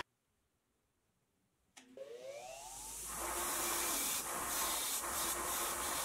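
A bench-mounted wire wheel switched on with a click, its motor whining up to speed, then running with a steady hiss as a small rusty metal part is held against the wire bristles to strip the rust.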